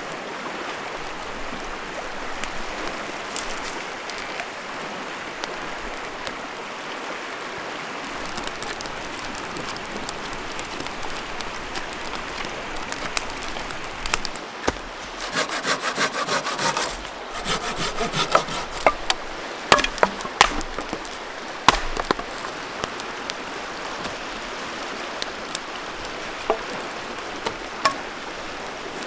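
Steady rush of river rapids. About halfway through, firewood is worked with a quick run of rasping strokes, followed by a few sharp cracks of sticks.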